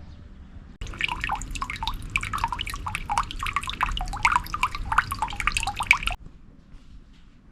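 Water dripping and splashing into water: a fast, irregular run of plinking drops that starts and stops abruptly.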